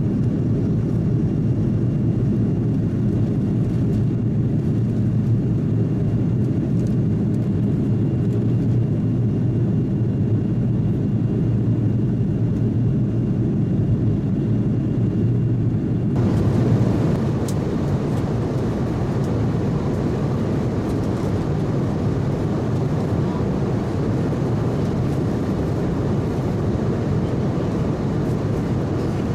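Steady rumble and rush of an Airbus A330-300 cabin in flight: jet engine and airflow noise. About 16 seconds in, the sound changes abruptly and carries more hiss.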